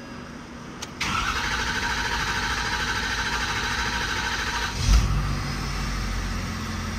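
A click, then the starter cranking a 2015 Ford F-250's 6.7 Power Stroke V8 turbodiesel for about four seconds. It catches with a loud burst and settles into a steady idle. This is the first start after a new CP4 high-pressure fuel pump and injectors were fitted and the fuel system primed.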